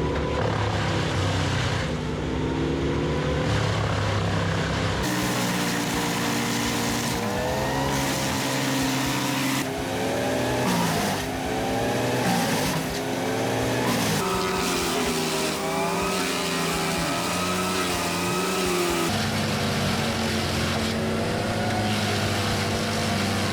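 Wood chipper engines running under load, their pitch repeatedly dipping and recovering as material is fed in. The sound changes abruptly three times, as one machine gives way to another.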